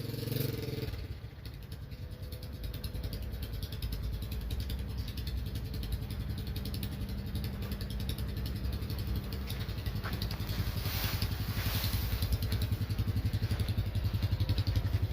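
Small motorcycle engine running steadily at low revs. A higher engine note falls away about a second in, and the running grows slowly louder.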